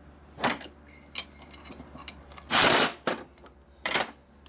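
Metal clinks and knocks as a two-jaw gear puller holding a freshly pulled transmission kicker gear is handled on a steel workbench, with one louder clatter of about half a second near the middle.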